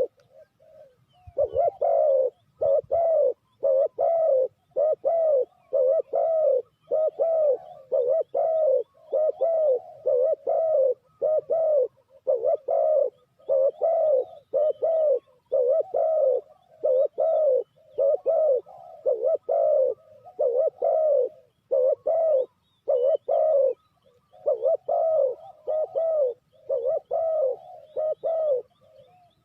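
Spotted dove cooing over and over: low, hollow coos in a steady run of about two notes a second, broken by short pauses about a second in and again near 24 s.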